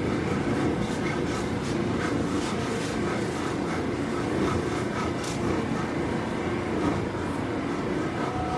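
Running noise inside a Seibu 9000 series electric train car, MoHa 9205, with its traction motor's abnormal whine faintly audible over the wheel and track noise. There are scattered light clicks from the rails.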